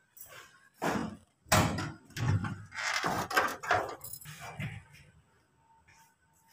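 A run of knocks and clatters from steel kitchen utensils and the lid of a metal storage bin being handled, busiest in the middle and dying away near the end.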